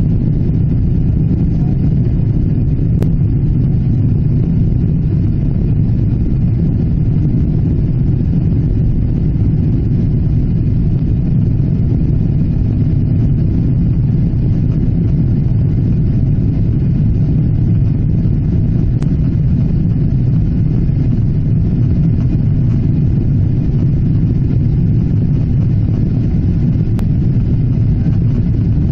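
Steady, loud low drone inside the economy cabin of a Boeing 777-300ER: engine and airflow noise that holds even and unchanging, with no rise or fall in pitch.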